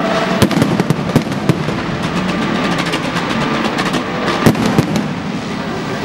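Fireworks going off in a rapid string of sharp bangs and crackles, densest in the first second and a half, with one loud bang about four and a half seconds in.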